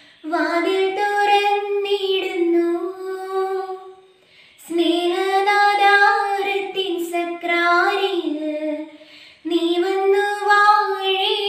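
A young woman singing solo without accompaniment, in three long phrases with short pauses between them.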